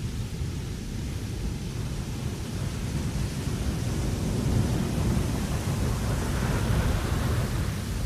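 Wind blowing across a ship's deck: a steady low rush that swells into a stronger gust in the second half and eases near the end.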